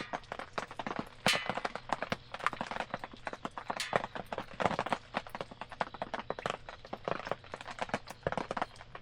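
Wood campfire crackling, with a dense, irregular run of sharp pops and snaps, some louder than others.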